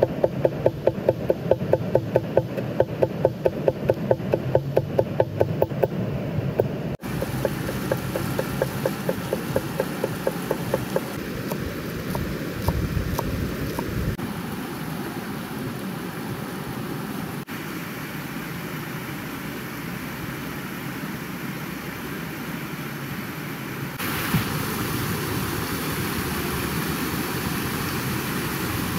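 Rapid, regular strikes with a short ringing tone, about three or four a second, like a blade chopping or something being pounded, for the first ten seconds or so. Under them and afterwards is the steady rush of a fast mountain river, which gets louder near the end.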